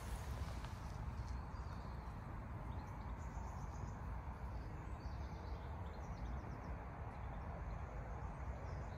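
Outdoor garden ambience: a steady low rumble with a few faint, distant bird chirps.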